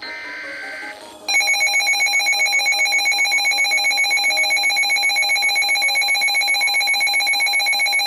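A one-second buzzy two-tone data burst, the end of a NOAA Weather Radio SAME alert header, then Midland handheld weather alert radios set off their alarm: a loud, rapidly pulsing electronic beep of several steady pitches, about seven pulses a second, sounding for a severe thunderstorm warning.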